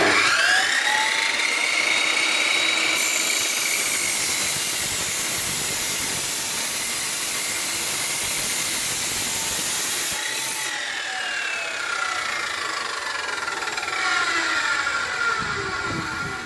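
FEG EG-936 cut-off saw's 2300 W brushed motor switched on, its whine rising quickly to speed and then running steadily. A harsher hiss joins it from about three seconds in until about eleven seconds. It is then switched off and winds down with a steadily falling whine.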